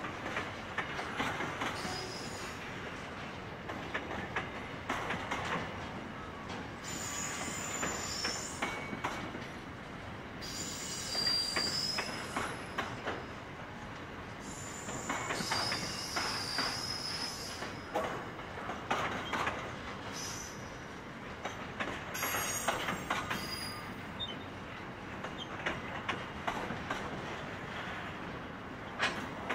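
Long container freight train's wagons rolling slowly past, wheels clicking over the rail joints, with bouts of high-pitched wheel squeal coming and going several times.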